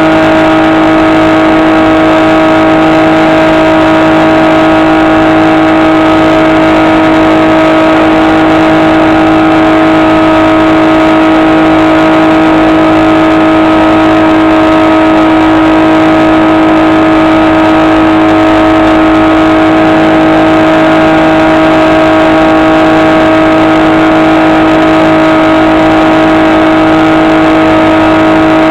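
Electric motor and propeller of a HobbyKing SkyEye FPV plane running at a constant throttle, giving a loud, steady whine that never changes in pitch.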